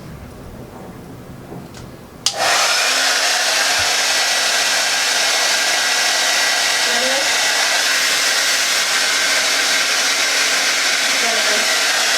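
Hand-held hair dryer switched on about two seconds in, then blowing steadily at full power: a loud, even rush of air with a faint low hum.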